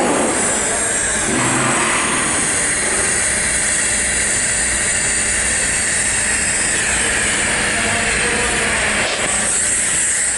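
TIG welding arc on pipe, a steady hiss with a constant low hum underneath.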